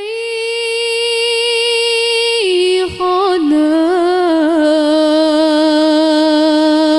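Background music: a single voice singing long held notes in a chant-like style. It holds one high note, steps down in pitch a little over two seconds in through a run of ornamented turns, then holds a lower note.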